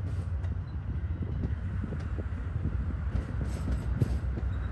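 Amtrak passenger train of single-level stainless-steel cars rolling past on the station throat tracks: a steady low rumble of wheels on rail, with scattered clacks and knocks as the wheels cross joints and switches.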